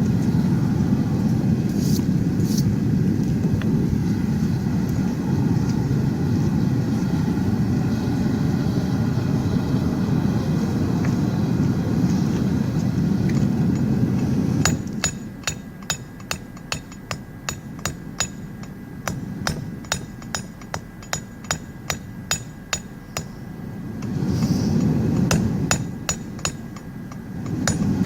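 Steady rushing noise of the forge's propane burners for about fifteen seconds. Then a steady run of hammer blows on a steel anvil, about two a second, with a short ring on each strike, as hot rebar is forged into tongs.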